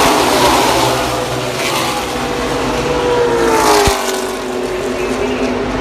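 A pack of NASCAR stock cars' V8 engines passing at racing speed, several engine notes overlapping and sliding in pitch as the cars go by.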